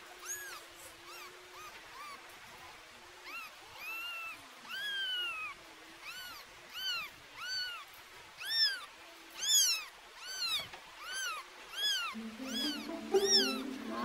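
Newborn kitten mewing over and over while it is held in the hand: thin high cries that rise and fall in pitch, about one a second, louder in the second half.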